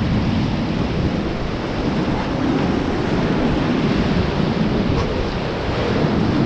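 Ganges river water rushing steadily around a paddled raft, with wind buffeting the microphone.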